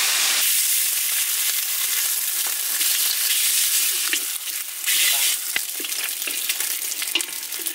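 Slabs of pork fat sizzling hard in a hot steel wok as they render into lard, with a steady high hiss. Wooden chopsticks turn the pieces and now and then click against the pan, once sharply a little past the middle.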